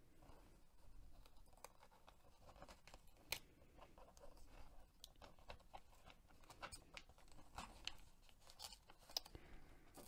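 Faint crackling and small clicks of a paper sticker being picked and peeled off its backing sheet with a fingernail, fingers brushing the book's pages.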